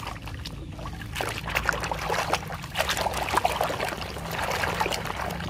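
Water splashing and sloshing in a plastic tub as a plastic toy excavator is swished and scrubbed by hand under the water; the splashing grows busier about a second in.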